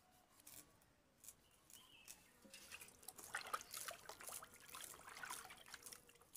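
Knife slicing into a scaled raw fish: faint, wet cutting and scraping clicks, sparse at first and then a busy run of cuts from about halfway through.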